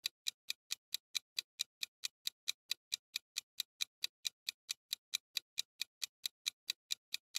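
Clock-ticking sound effect for a quiz countdown timer: short sharp ticks at an even pace of about four to five a second.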